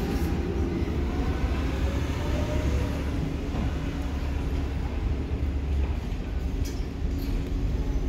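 Blue Bird CNG school bus driving slowly past at close range and pulling away, its engine a steady low rumble that eases a little as it goes.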